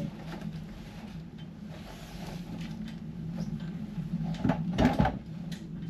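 A steady low hum with two or three loud clunks about four and a half to five seconds in.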